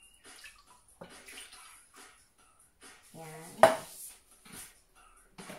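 Kitchen utensils and dishes clinking and clattering as a metal measuring cup and a glass mixing bowl are handled. There are light scattered clinks, then one sharp, loud knock about three and a half seconds in.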